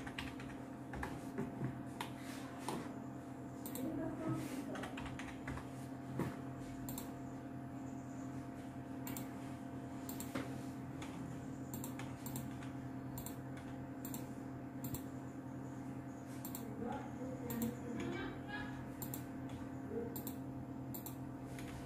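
Computer keyboard keys tapped in short, irregular clicks, over a steady low hum.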